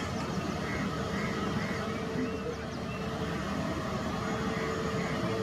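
Steady jet engine noise from an IndiGo Airbus A320-family airliner running at low power on the runway.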